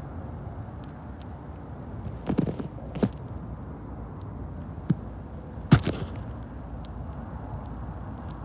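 Steady low outdoor rumble with a few sharp knocks and thumps, about two and a half, three, five and six seconds in; the one near six seconds is the loudest.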